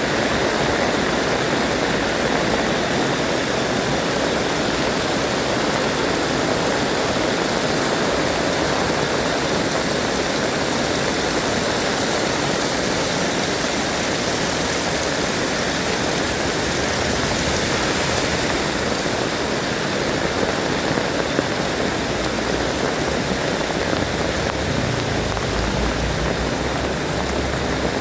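Heavy rain pouring steadily, a dense even hiss of water. A low rumble joins in near the end.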